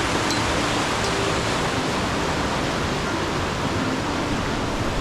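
Steady, loud rush of water, an even noise without break.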